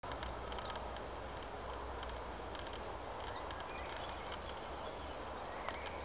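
Outdoor natural ambience: a steady low rumble and hiss with scattered faint, short high chirps, most likely small birds calling.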